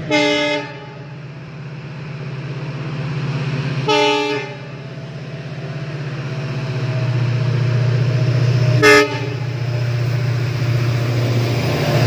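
Indian Railways locomotive approaching and passing with a freight train, sounding its horn three times: near the start, about four seconds in, and a shorter blast about nine seconds in. Under the horn a steady low hum of the train grows louder as it nears.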